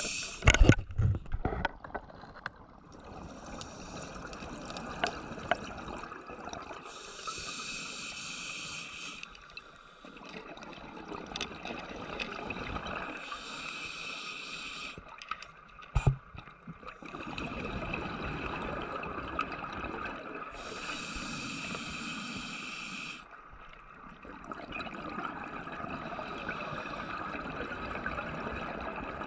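Scuba diver's breathing heard underwater through the camera housing: a hissing inhalation through the regulator every few seconds, alternating with bubbling exhalations. There are loud knocks of the camera just after the start and a sharp click about 16 seconds in.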